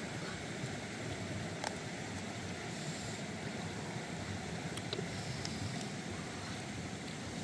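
Steady outdoor background noise, an even hiss, with a few faint light clicks.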